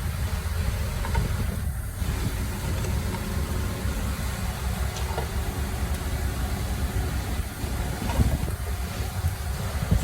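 Heavy machinery engine running steadily: a continuous low rumble with no sudden changes.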